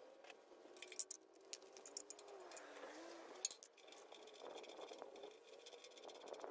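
Faint scattered clicks and light metallic rattling, as of small steel pieces and chips being handled on a drill press's metal table.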